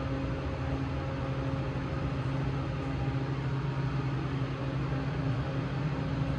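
Large 10,000-pound-capacity elevator car travelling slowly down: a steady low machine hum with no change in pitch.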